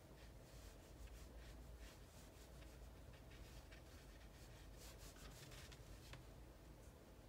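Faint, irregular strokes of a watercolor brush on paper over a quiet room.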